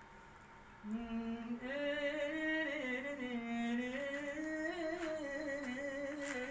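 A solo voice singing a slow, ornamented melody with long held notes, starting about a second in after a moment of quiet.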